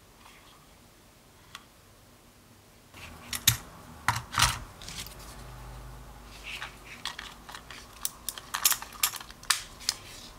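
Sharp plastic clicks and handling noises of a Kodak Pixpro FZ43 compact digital camera as an SD card is loaded into its battery and memory-card compartment. There is one small click about a second and a half in, then a run of clicks that grows denser near the end.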